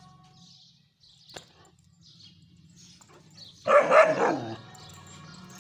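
German shepherd puppy barking: a quick run of two or three barks about two-thirds of the way through, just under a second long.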